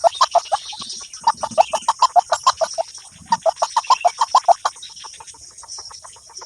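Clucking bird calls: three fast runs of short, clipped notes at about ten a second, each run lasting one to one and a half seconds, with short gaps between. A steady high hiss runs underneath.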